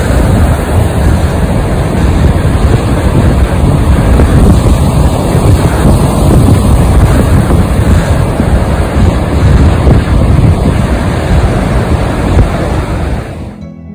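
Rough sea surf breaking and washing over rocks on a rocky shore, a loud continuous roar mixed with wind buffeting the microphone. It cuts off sharply just before the end.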